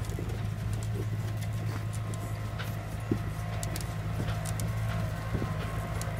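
Lamborghini R1 tractor's diesel engine idling steadily, with a few short clicks over it.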